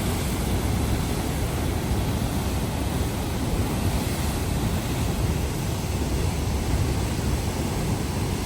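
Huka Falls on the Waikato River, a large volume of water rushing through the falls with great force: a steady, even rush of water, heaviest in the low end.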